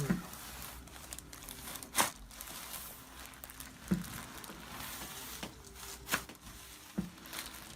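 Crinkling and rustling, broken by four sharp clicks spread through it, the loudest about two seconds in.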